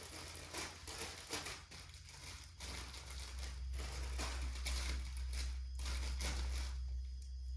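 Plastic packaging crinkling and rustling in irregular handfuls as baby items are unpacked, with a steady low hum underneath that grows louder a few seconds in.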